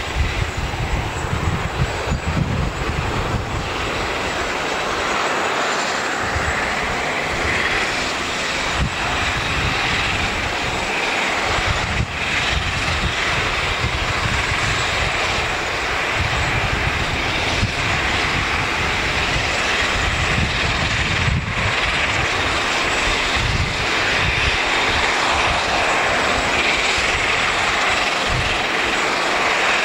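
Pratt & Whitney Canada PW150A turboprop engines of a Bombardier DHC8-Q400 running on the ground, a dense steady mix of turbine whine and propeller drone. A faint whine rises in pitch over the first several seconds, and the whole sound slowly grows louder.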